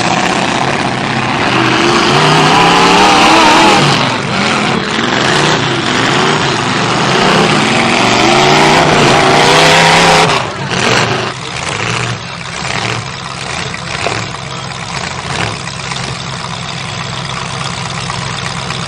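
Demolition derby car engines revving hard, their pitch rising and falling, for about ten seconds. Then the engines drop back to a lower, steadier running with scattered short knocks.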